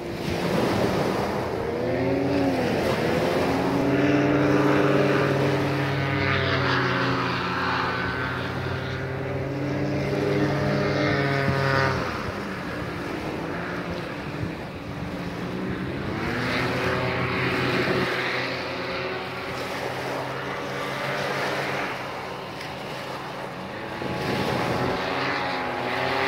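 A small, fast-running engine drones steadily, its pitch swinging down and back up several times as it passes to and fro, with wind noise underneath.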